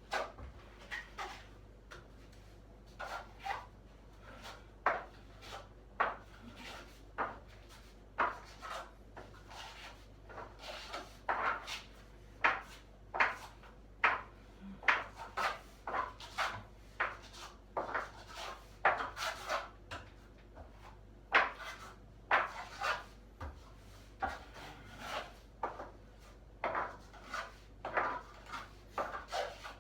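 Putty knife scraping across a cracked ceiling in short, irregular strokes about once a second, some in quick pairs, as joint filler is worked into the cracks.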